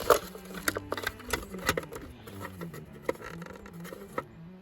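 Irregular sharp clicks and light knocks of tools and parts being handled while taking apart a 1973 Honda 450 motorcycle, likely at its side cover.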